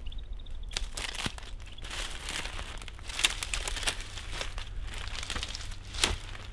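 Dry leaves and dead palm fronds crackling and rustling as they are gathered by hand from the forest floor, in irregular bursts of sharp crackles.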